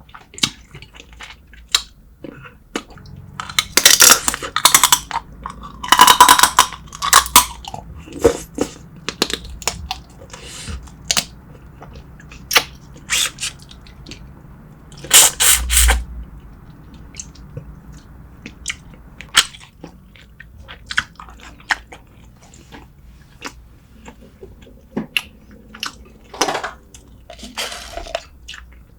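Close-miked eating of spicy braised seafood and beef short ribs: wet mouth clicks and chewing, with a few louder crunching bursts, about four seconds in, around six seconds in, and about halfway through.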